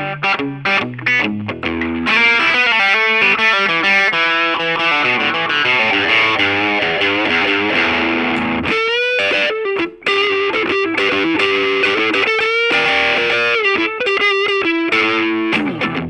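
Aria Pro II ST-500D Stratocaster-type electric guitar with DiMarzio FS-1 "Fat Strat" pickups, played through distortion: short choppy chords for the first two seconds, then a sustained run of notes. In the second half come pitch bends and held lead notes with vibrato, and choppy chords return near the end.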